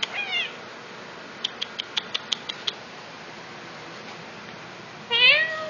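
Domestic cat chirping briefly, then a quick run of light clicks, then a louder meow near the end, begging for food.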